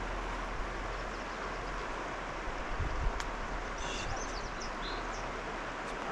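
Steady rushing of a river's flowing water, with a small bird giving a few quick high chirps about four seconds in and a soft knock a little before that.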